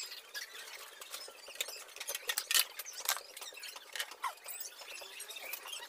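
Hands handling the loose wiring harness and connectors behind a scooter's removed front cowl, making a string of small irregular clicks and rattles, with a few short high squeaks.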